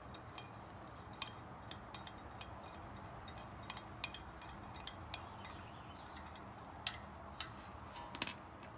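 Sparse light metallic clicks and clinks of lug nuts being handled and threaded by hand onto the studs of a wheel spacer on a hub, with a quick cluster of clicks near the end.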